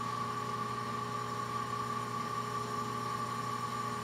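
Single-plane, soft-bearing vertical balancing machine spinning a rotor at steady speed for a trial run with a trial weight on its dial table: an even hum with a steady high whine.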